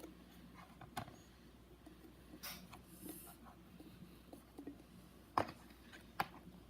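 Faint handling sounds: a few light clicks and taps, with two short rustles near the middle and a sharper tap near the end, over a low steady hum.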